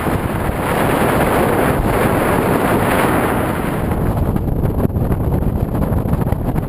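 Loud wind rushing and buffeting over the camera's microphone during paraglider flight. About four seconds in the hiss thins and a low rumble remains.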